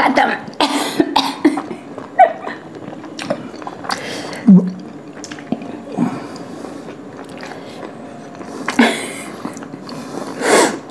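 A person coughing and clearing their throat several times, with mouth and chewing sounds in between, after a big mouthful of rumali roti and dal; the longest coughs come near the end.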